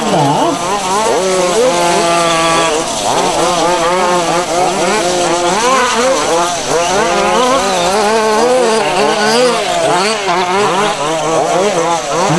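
Several 1:5-scale gasoline RC buggies' small two-stroke engines racing together, their pitches rising and falling as they rev and back off. One engine holds a steady high note for about a second, around two seconds in.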